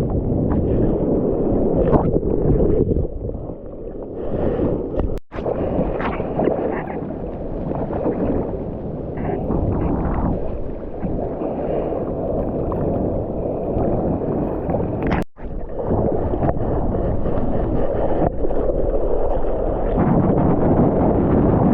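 Surf water rushing and sloshing around a GoPro camera in its housing while bodyboarding, with wind buffeting the microphone. The sound cuts out sharply for a moment twice, about five and about fifteen seconds in.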